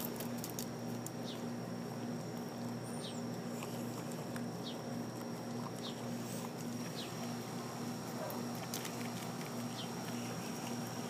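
Dog eating from her bowl: soft licking and chewing with scattered faint clicks, over a steady hum. Short high falling chirps repeat every second or so.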